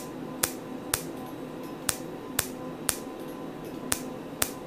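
Erbium-YAG laser pulses ablating skin, each a sharp snap, about two a second in short runs with brief gaps, over a steady hum. The snaps are the laser peeling away the top layer of skin to remove a brown pigmented spot.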